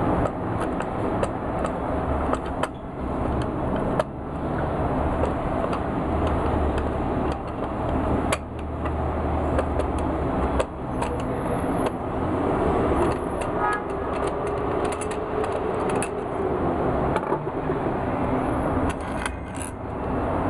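Steady rumbling background noise with scattered light clicks and scrapes as a long screwdriver unscrews the long stock bolt through the butt of an IZh-27 shotgun.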